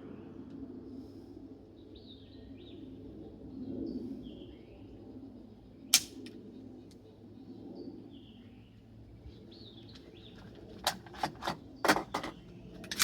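Faint bird chirps, one sharp crack about six seconds in, and a quick series of sharp clicks and knocks near the end.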